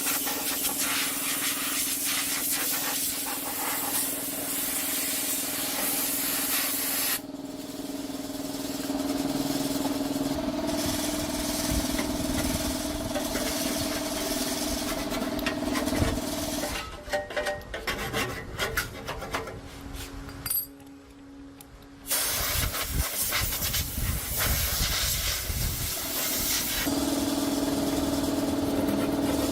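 A machine running with a steady hum under a strong hiss. The sound breaks up about two-thirds of the way in and drops away for a second or two, then starts again, with the hum stronger near the end.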